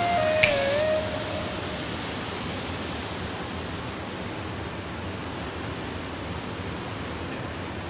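Steady, even rush of falling water from the Okere Falls waterfall. Background music fades out in the first second or so.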